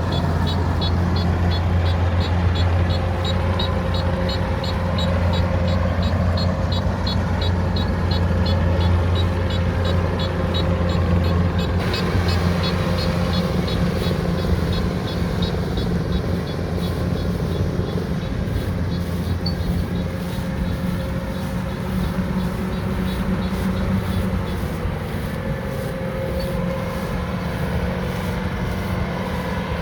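Rice harvester running steadily at work, a loud low engine hum with a fast, even ticking over it. About halfway through the low hum eases and the sound turns brighter.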